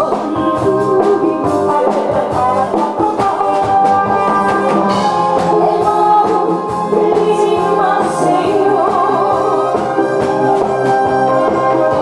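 A woman singing into a microphone over amplified instrumental accompaniment with a steady beat.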